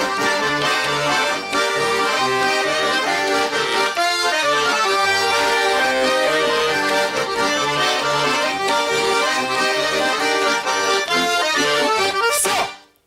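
Accordion playing a Russian folk tune over a rhythmic bass accompaniment, the instrumental close of a song with no singing; the music cuts off abruptly near the end.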